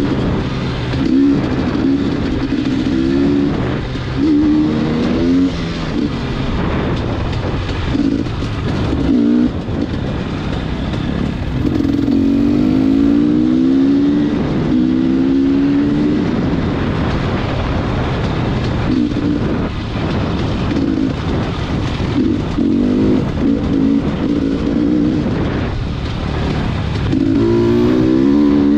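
A motor vehicle's engine running while driving, its pitch changing again and again as it speeds up and eases off, over steady road and wind noise.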